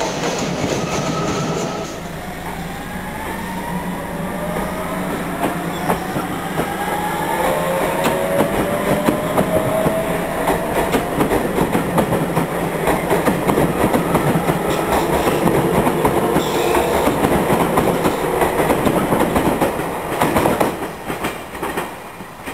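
Electric train pulling away. Its traction motor whine rises slowly in pitch as it accelerates, over wheel clatter on the rails, and the sound falls away near the end.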